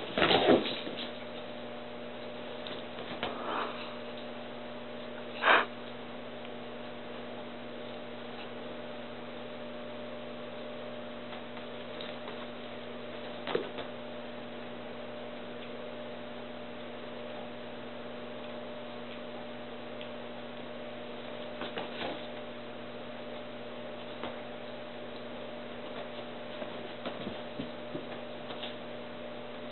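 Steady low electrical hum, broken by a few short dog noises from two dogs at play: a burst right at the start, a sharp loud one about five seconds in, and fainter ones scattered later.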